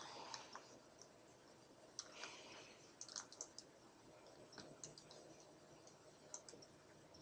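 Faint computer mouse clicks, scattered singly and in short runs of three or four, over near silence.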